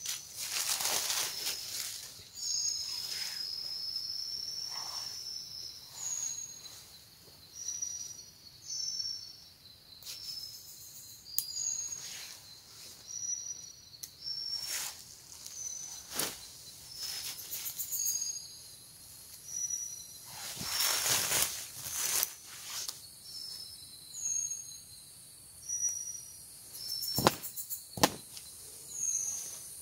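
Forest ambience: short, high-pitched chirps repeat every second or two over a steady high insect hiss. Rustles and a few sharp knocks break in now and then, loudest about two-thirds of the way through and near the end.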